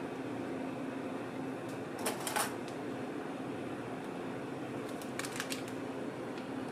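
Steady machine hum, with two short clusters of crisp crackling clicks about two seconds in and again after five seconds, from the crepe's paper wrapper handled in gloved hands.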